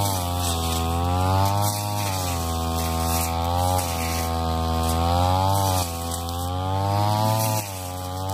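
Ryu backpack brush cutter engine running at cutting speed, its pitch surging up and sagging back every two seconds or so as the cutting head sweeps through thick, tall grass.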